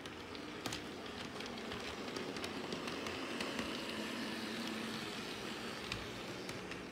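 HO scale model diesel switcher and tank car rolling along the track, the wheels clicking and rattling over the rails with a motor hum underneath. The sound swells as the train comes past and eases off near the end.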